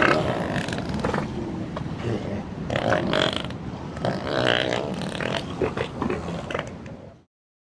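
African elephants making low, rough rumbling and gurgling sounds while drinking, continuous and cutting off abruptly near the end.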